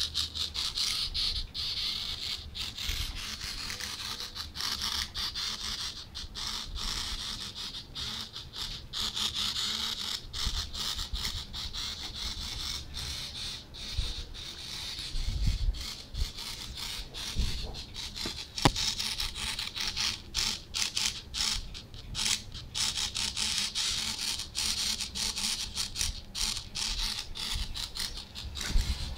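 Small hobby servo motor whirring and buzzing in rapid spurts as its gear train swings to randomly changing angle commands, with a steady high-pitched buzz and many short ticks throughout.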